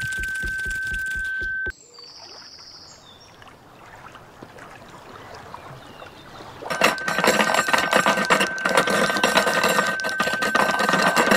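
A steady high-pitched tone over loud noise with a fast low pulsing, about five beats a second, cuts off abruptly just under two seconds in. After a quieter stretch with a brief higher beep, the same steady tone and loud noise come back about seven seconds in.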